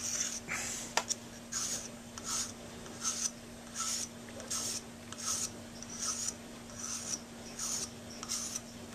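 Coarse 00-cut Grobet Swiss file rasping in short, even strokes, about one and a half a second, across hardened acrylic bite-plate material on the tip of a metal saxophone mouthpiece, roughing the rough overcoat down to shape. A single sharp click about a second in.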